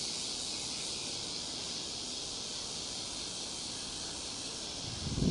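A steady high-pitched hiss, with a louder low rumble starting near the end.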